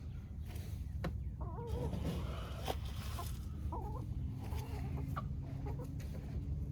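Chickens clucking: several short, wavering calls, with a few sharp clicks in between and a low rumble underneath.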